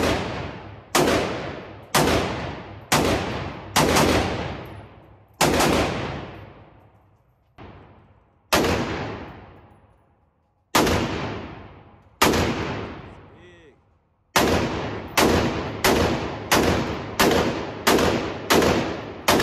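Gunshots fired one after another at about one a second, each echoing and fading out, with a fainter shot in the middle and a quicker run of about eight shots near the end.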